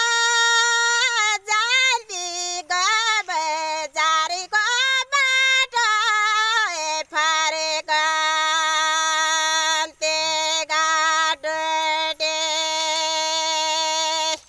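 A woman singing a Thadi Bhaka, a Nepali folk melody, unaccompanied in a high voice. The first half moves through wavering, ornamented notes. She then slides down and holds one long steady note, broken by a few short breaths.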